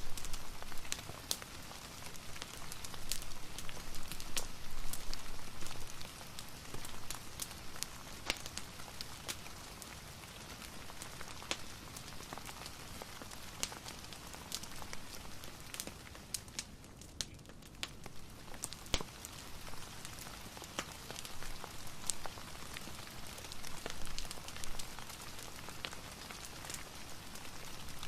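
Steady rain with a fireplace crackling over it: an even hiss of rain broken by frequent small, sharp pops of burning wood.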